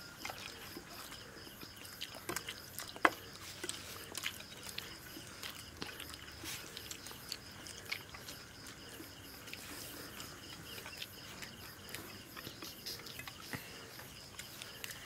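People eating rice and fish curry: scattered wet smacks and chewing clicks, with one sharp click about three seconds in. A faint steady high-pitched tone runs underneath.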